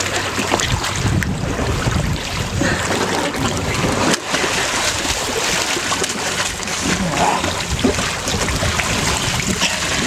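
Seawater splashing and sloshing steadily and fairly loudly around a person in the ocean.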